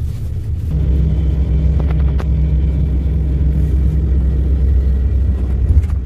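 Hyundai County LWB bus's diesel engine heard from inside the cabin, getting louder about a second in as the bus pulls away and then running with a steady low hum, with a few light rattles.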